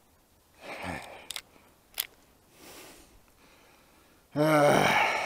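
Sharp metallic clicks from a Glock 19 pistol fitted with a .22 LR conversion kit between shots, a soft one and then a louder one about two seconds in. A brief vocal sound, a grunt or sigh, follows near the end.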